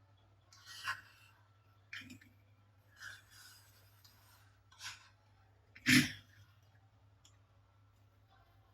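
Five short knocks and scrapes of small objects being handled, the loudest about six seconds in, over a faint steady low hum.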